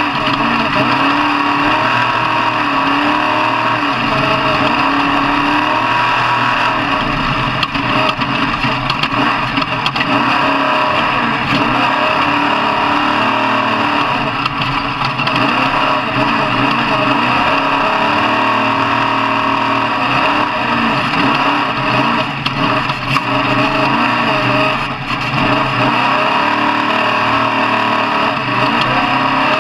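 Off-road truck engine running, its pitch rising and falling as it is revved.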